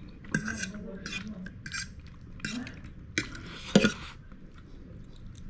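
Cutlery clinking and scraping against a bowl of instant noodles while eating, a series of short clinks with the sharpest one a little under four seconds in.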